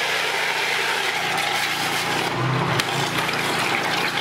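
Pressure washer driving a mud sucker, a venturi attachment on the lance: a steady rush of water and air as it sucks dirty water, silt and small stones up out of a bucket, with a low steady hum underneath.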